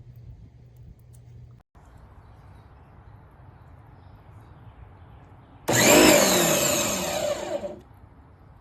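Electric pressure washer's motor and pump starting abruptly and running for about two seconds, its pitch falling as it winds down.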